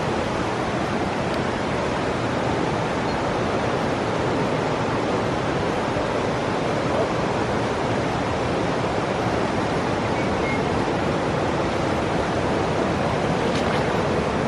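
Steady rushing of a fast-flowing river current, an even, unbroken noise with no change in level.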